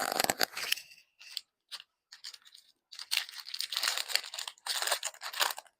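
Plastic snack wrapper crinkling and tearing as it is opened. There is a spell of rustling at the start and a longer one from about three seconds in.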